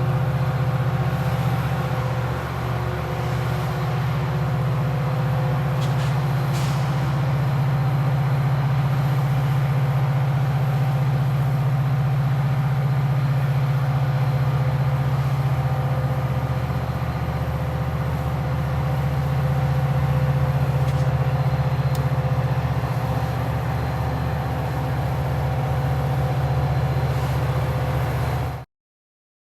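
Metra F40PH diesel-electric locomotive idling: its EMD 16-645 V16 two-stroke diesel engine runs with a steady low drone, with a faint tick or two. It cuts off suddenly near the end.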